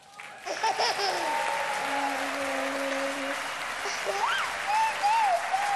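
Audience applauding, the clapping starting about half a second in and continuing steadily.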